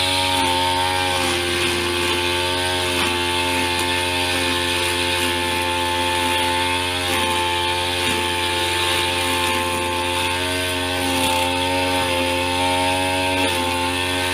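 Backpack brush cutter's small petrol engine running at high speed while cutting grass, its pitch dipping and recovering a few times as the cutting head meets the growth.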